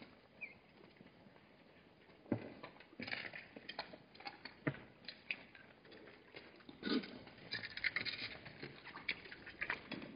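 Hartmann's mountain zebras milling and drinking at a waterhole: irregular hoof clicks and scuffs on gravel mixed with drinking sounds, sparse at first and busier from about two seconds in.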